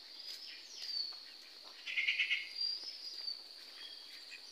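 Rural outdoor ambience: insects sing steadily at a high pitch while birds give short sweeping whistled calls. A brief burst of rapid chirping comes about two seconds in and is the loudest thing.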